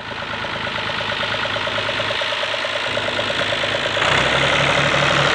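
A Fiat Someca 540S tractor's diesel engine idling steadily with a regular pulse. It fades in at the start and gets louder about four seconds in.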